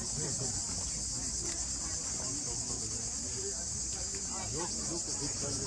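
Steady, high-pitched buzzing chorus of insects, with faint voices underneath.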